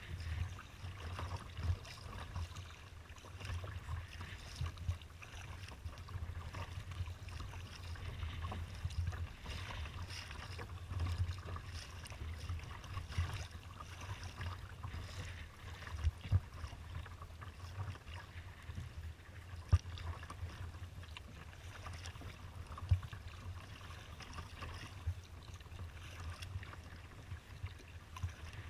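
Water splashing and lapping against a sea kayak's hull as it is paddled across choppy open water, with wind buffeting the microphone as a low fluttering rumble. A few sharper slaps or knocks stand out now and then.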